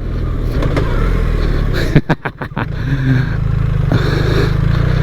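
BMW R 1300 GS's boxer-twin engine pulling under way, rising over the first two seconds. It briefly drops away with a few knocks about two seconds in, then runs steadily again.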